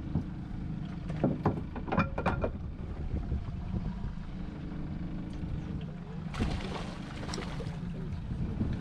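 Boat engine idling with a steady low hum, with a few sharp clicks about a second or two in and a short rush of noise about six and a half seconds in.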